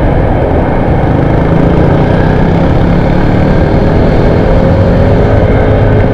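Yamaha NMAX 155 scooter under way: steady engine and road noise with a heavy low rumble, and a faint whine that glides up and down in the second half.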